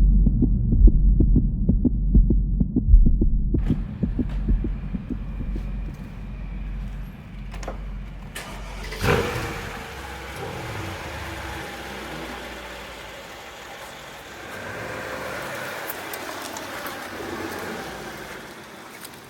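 Mercedes-Benz S63 AMG's V8 engine running, with a low, even throb for the first few seconds and a sudden loud burst about nine seconds in, then running steadily.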